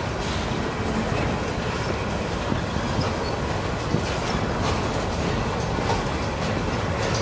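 Freight train of container-loaded flatcars rolling steadily past: a constant rumble and rattle of wheels on rail, with faint clicks and a few brief, very high squeals.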